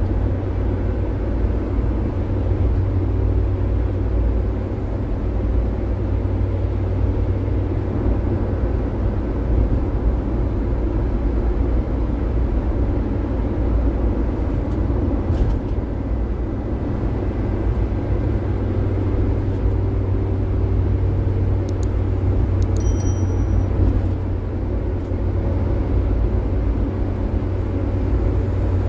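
Steady cabin noise inside a Daihatsu Gran Max van at highway speed: engine drone with tyre and road rumble.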